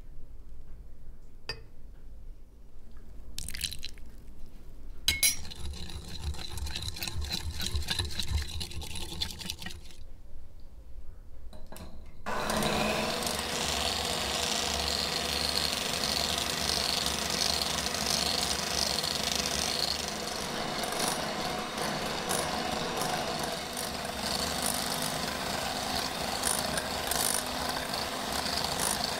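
Cooking oil poured into a glass mug, with light clinks of glass. About twelve seconds in, a Katomo electric hand mixer starts and runs steadily, its beaters whisking egg and oil into mayonnaise in a glass bowl.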